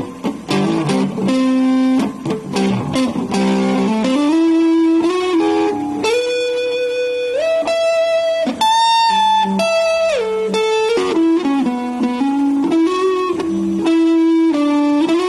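Electric guitar played through a Marshall G15RCD combo amp: a few seconds of choppy strummed chords, then a single-note lead line of held notes with slides up and down between them.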